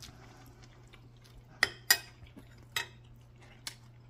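Chopsticks clinking against porcelain bowls and plates while serving at a meal: four sharp clinks, the loudest a little under two seconds in, over a steady low hum.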